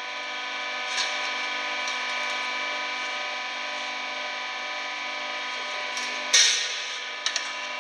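Hydraulic notching machine running steadily, its pump motor giving a hum of several steady tones. About six seconds in comes one loud sharp bang, followed just after by two light clicks.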